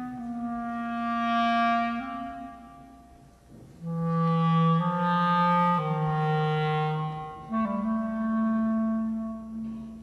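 Clarinet playing a slow melody of long held notes over a lower line that also holds long notes. The music fades briefly about three seconds in, then comes back.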